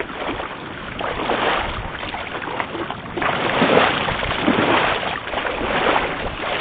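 Water sloshing and splashing in surges about once a second, as a person wades through shallow water.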